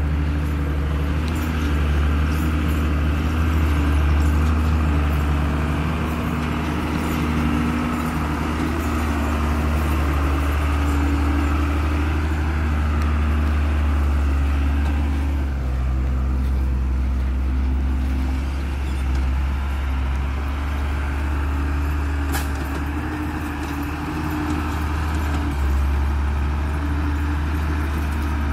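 Hino FM8J cargo truck's diesel engine running under load on a steep dirt track, its note rising and falling slightly. The engine sound changes about halfway through.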